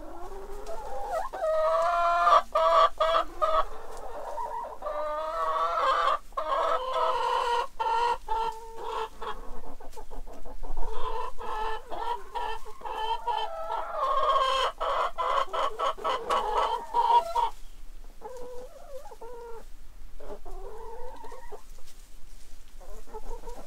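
Several hens clucking and calling together in a coop, with overlapping drawn-out calls and scattered short clicks. The calling thins out after about seventeen seconds.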